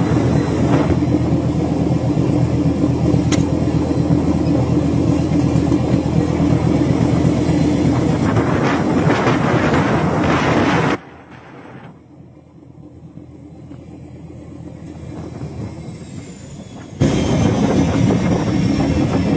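A fishing boat's diesel engine running steadily with a low drone. The drone cuts off abruptly about eleven seconds in, leaving a much quieter, slowly rising noise for several seconds. It then comes back at full level near the end.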